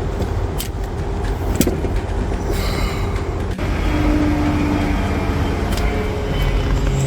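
Steady low rumble of the car running, with a few sharp light clicks as dashboard screws and trim are refitted.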